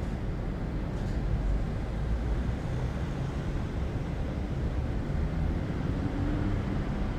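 City ambience: a steady low rumble of distant traffic, with a faint rising tone near the end.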